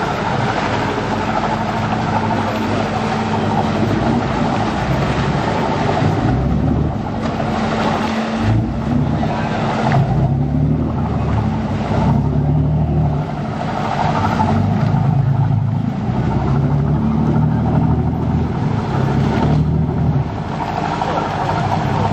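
Passenger ferry's engine running close by as the boat manoeuvres at a landing pier: a steady low drone with a constant hum, its lower note shifting up and down in pitch in the second half.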